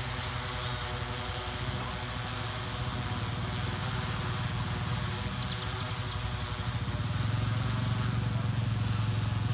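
Eight-rotor DJI Agras MG-1S spraying drone in flight, its propellers giving a steady low hum over a hiss. The hum grows louder about seven seconds in.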